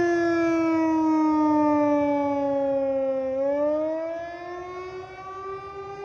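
Outdoor tornado warning siren sounding a wail: its single tone slides down for about three seconds, then climbs again, growing fainter near the end.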